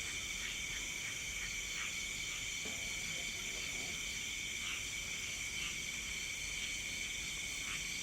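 Night insect chorus: crickets trilling steadily at several pitches at once, one of them in a fast pulsing beat, with scattered short chirps from other small creatures.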